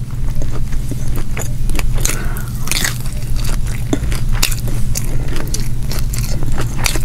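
Close-miked chewing of fried striped bass, with many short wet clicks and smacks from the mouth, over a steady low hum.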